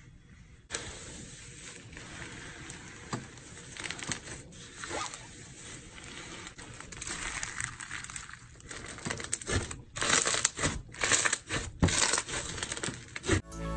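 Slime being kneaded into small foam beads by hand, crackling and crunching as the beads are pressed in. From about ten seconds in the crackles and pops grow louder as the hand squeezes the bead-studded slime.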